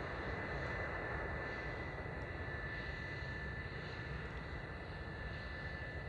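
Jet engines of an Airbus A320 running as it rolls along the runway: a steady rush of jet noise with a thin, steady high whine.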